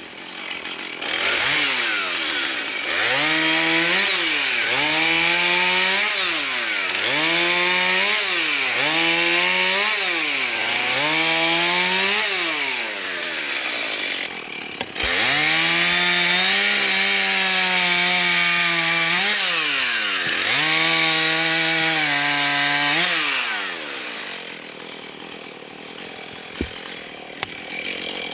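Husqvarna two-stroke chainsaw cutting wood. It is throttled up and eased off again and again, its pitch rising, holding under load and falling, with a short drop about halfway. Near the end it falls back to a quieter idle.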